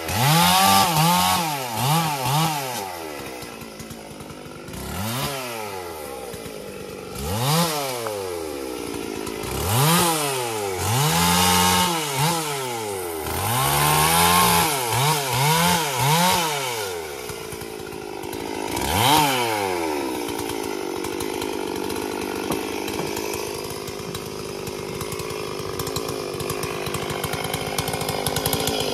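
Stihl MS 440 two-stroke chainsaw, its engine revved up and dropping back again and again in quick bursts. In the last third it settles to a steadier, quieter run.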